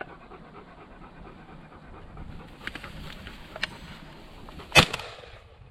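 Hunting dog panting close by, with a few light clicks and one loud sharp crack near the end.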